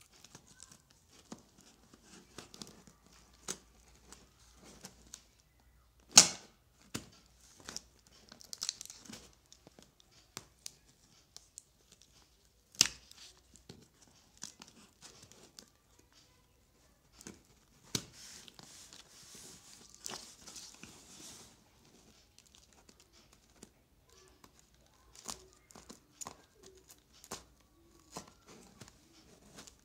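Packing tape being cut and torn open on a cardboard delivery box with a box cutter, with scattered clicks and handling knocks. A sharp knock about six seconds in is the loudest sound, with others near thirteen and eighteen seconds, and a longer stretch of tearing follows from about eighteen to twenty-one seconds.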